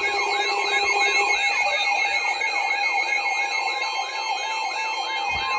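Emergency alert tones interrupting a weather-radio broadcast: a steady two-note attention tone with a rapidly repeating rising sweep over it, about three sweeps a second. A lower steady tone under them cuts off about a second in.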